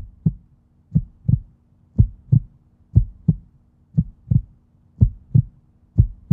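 Heartbeat sound effect: a double low thump about once a second, steady like a slow resting pulse, over a faint steady low hum.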